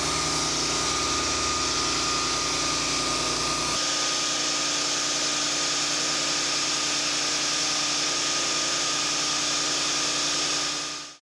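Pressure washer running with a surface cleaner's blasting nozzle spraying high-pressure water onto concrete: a steady hiss of spray over an engine-like drone. About four seconds in the low drone drops away, and the sound fades out near the end.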